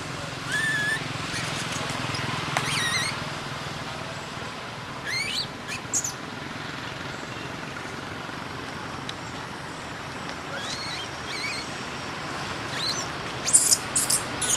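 Infant long-tailed macaque crying: short, high-pitched squeals that glide up and down in pitch, coming in scattered groups and loudest near the end, over a steady outdoor hiss.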